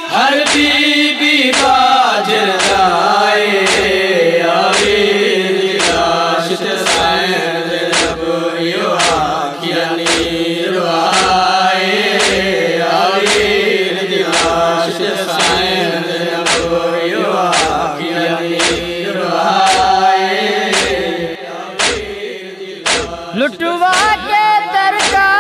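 Voices chanting a Shia noha (lament) in unison over steady matam: palms striking chests in time, about two strikes a second.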